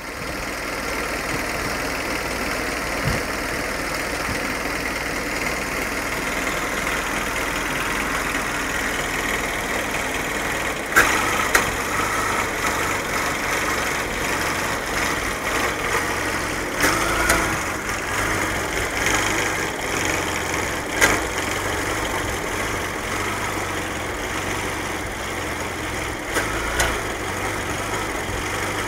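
1995 Pontiac Sunfire's four-cylinder engine idling roughly and coughing. The steady running is broken by a handful of sharp, louder stumbles, some in close pairs. The owner takes it for an engine fault that needs the cylinder head opened and repaired.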